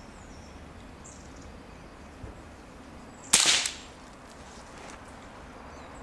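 A single shot from a Ruger 10/22 semi-automatic .22 rimfire rifle fitted with a silencer, about three seconds in: a sharp crack that dies away within half a second.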